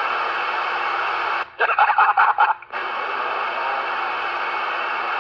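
CB radio receiver hissing with steady static on channel 6 (27.025 MHz) during a sporadic E skip opening. About a second and a half in, a short choppy burst of a keyed signal cuts in and out for about a second, then the hiss returns.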